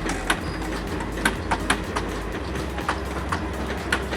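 Passenger train running on the rails: a steady low rumble with irregular sharp clacks of the wheels over the rail joints.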